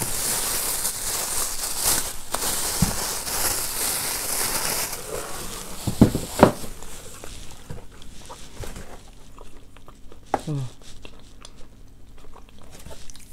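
Thin plastic bag crinkling and rustling as it is handled, with two sharp knocks about six seconds in. It then settles to faint, scattered rustling.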